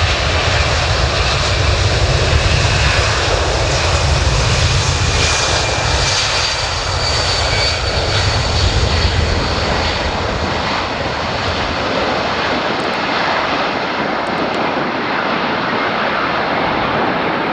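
Boeing C-17A Globemaster III's four turbofan jet engines running loud: a broad jet roar with a faint whine. A deep rumble under it fades away after about ten seconds while the higher roar carries on.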